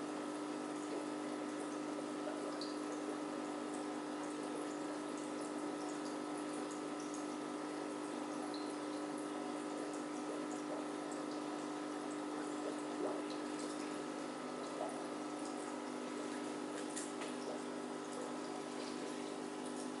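Aquarium pump humming steadily over a constant burble of moving water, with occasional faint ticks.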